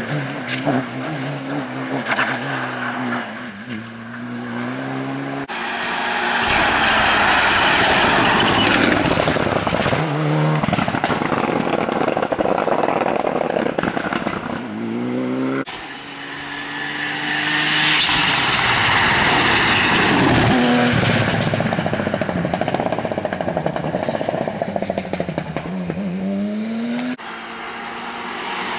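Rally cars accelerating hard past on a tarmac stage, one after another: each engine revs up, drops back at a gear change, and climbs again. The sound switches suddenly from one car to the next a few times.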